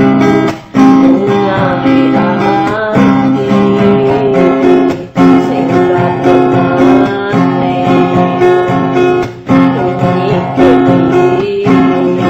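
Music led by strummed and plucked acoustic guitar, with brief drops in loudness about every four to five seconds between phrases.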